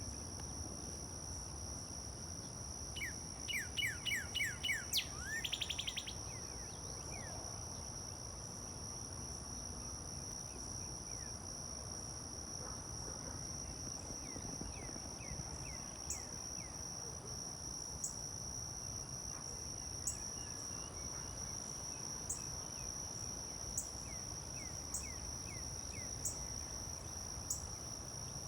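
A cardinal singing a phrase of repeated down-slurred whistles that speeds up into a quick run, about three to six seconds in, with fainter phrases later. A steady high insect drone runs underneath, and sharp ticks come about every second in the second half.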